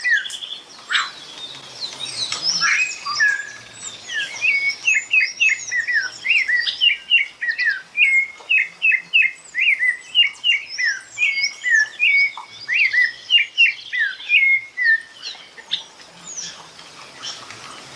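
Songbirds chirping and singing: a busy run of short, quick-sweeping whistled notes, several a second, that thins out in the last few seconds.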